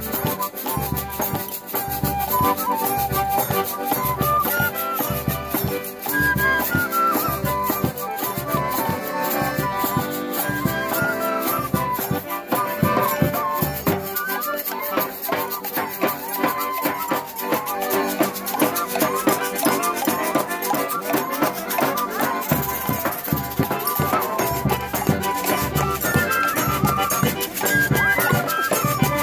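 Live forró played on accordion and two wooden fifes (pífanos) carrying the melody over a bass drum beating about twice a second. The drum drops out briefly about halfway through, then comes back in.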